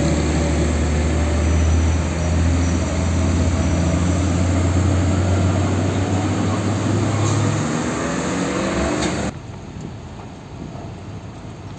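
Green Hino Ranger dump truck's diesel engine driving past at close range, a loud deep drone with tyre and road noise. The drone fades after about eight seconds, and about nine seconds in the sound cuts sharply to a fainter traffic hum.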